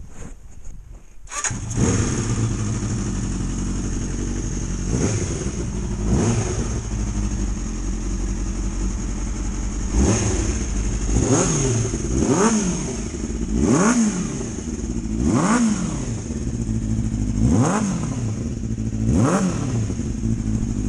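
Four-cylinder Suzuki GSX 400 motorcycle engine in a home-built dirt bike. It comes in abruptly about a second in, then runs at idle with repeated quick throttle blips, each rev rising and falling in pitch.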